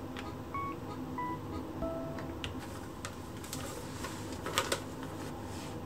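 Quiet background music with a few short, separate melody notes. Faint rustles and clicks come in the second half.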